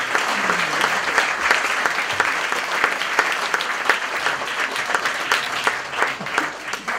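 Audience applauding, a dense patter of many hands clapping that thins out and fades toward the end.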